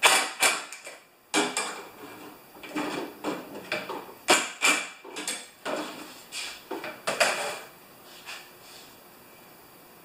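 A cordless drill/driver run in short, irregular bursts, about eight in all, tightening the carburetor mounting screws on a two-stroke snow thrower engine.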